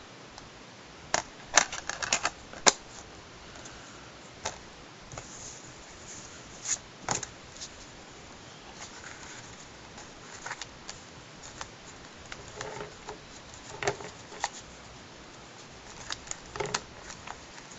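Plastic Blu-ray case and its discs being handled: scattered, irregular clicks and taps with some light rustling, the sharpest clicks in the first few seconds.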